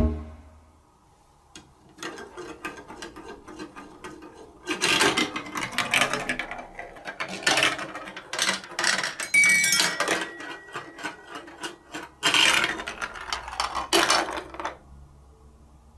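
A plastic ball rolling and rattling through the plastic tubes and chutes of a block marble run, with dense quick clicking. Louder spells come about five, nine and twelve seconds in, and the sound dies away near the end.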